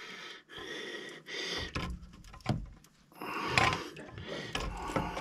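Irregular metallic clunks, clicks and scrapes of hand tools working at a Jeep engine's water pump as it is loosened and pulled off.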